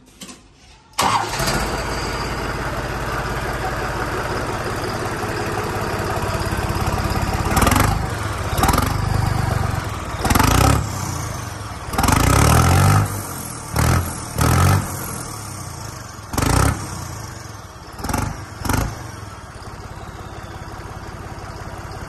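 New Holland 3630 TX Plus diesel tractor engine starting about a second in, then running with about nine short bursts of revving before settling back to idle near the end. Its modified silencer gives the exhaust a whistle-like note.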